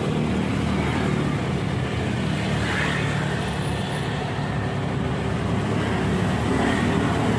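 Steady road traffic noise, with a low, even engine hum underneath.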